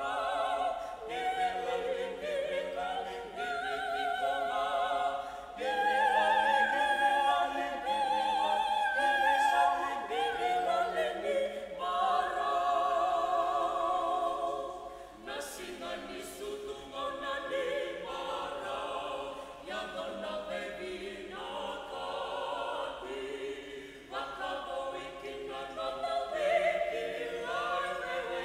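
Small mixed vocal ensemble of men and women singing a Fijian Christmas song in harmony, with wavering held notes. The singing swells louder a few seconds in and grows softer past the middle.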